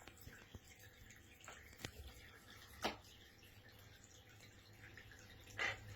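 Quaker parrot bathing in shallow water: soft drips and small splashes, with three clearer ones about two, three and five and a half seconds in, the one near three seconds the loudest.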